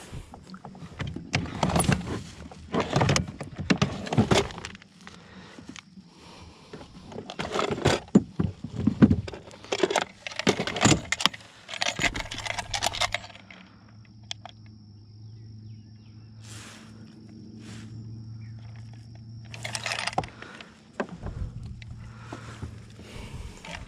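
Clattering, knocking and rattling of a large bass and fishing gear being handled in a bass boat, irregular through the first half. About halfway in a steady low hum starts and runs until near the end, with a few scattered ticks over it.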